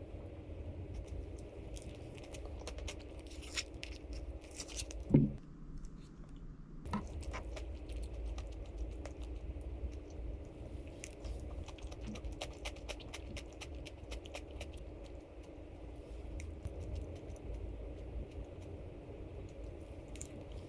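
Soft chewing and crunching of someone eating, with scattered small clicks over a steady low room hum. There is one sharp knock about five seconds in.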